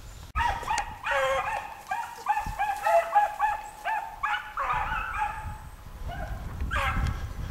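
Hounds baying: a quick run of short, pitched yelping calls, several a second and partly overlapping from more than one dog, with a brief lull about six seconds in before a few more calls.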